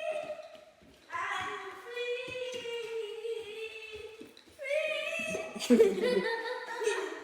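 A child's voice singing long, drawn-out notes, each held for a second or two, with a short break about a second in and a louder, rougher stretch near the end.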